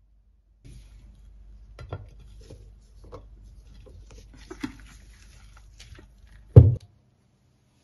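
Ridged glass plate and black metal baking pan handled against each other, with small clinks and knocks, as the frittata pan is turned upside down onto the plate. A single heavy thud near the end as the flipped pan and plate are set down on a wooden board.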